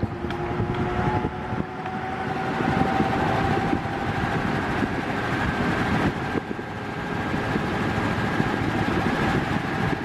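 Mondial Turbo Force 8 eight-blade 150 W electric fan running at its minimum speed: steady rushing air with a faint motor hum, gusting on the microphone close to the grille.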